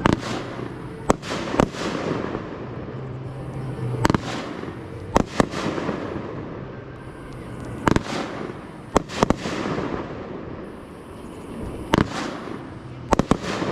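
Aerial fireworks display: about a dozen sharp shell bursts, several in quick pairs, a second or so apart, with a continuous rumble between them.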